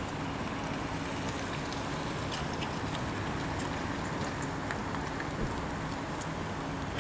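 Class 170 Turbostar diesel multiple unit running steadily, a constant engine hum under a steady hiss, with faint scattered ticks.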